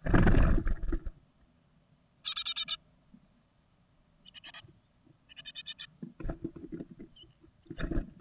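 Great tit nestlings close to fledging, moving about inside a wooden nest box: a loud burst of wing-fluttering and scrabbling at the start and another run of scrabbling near the end, with three short, rapid trains of high begging calls in between.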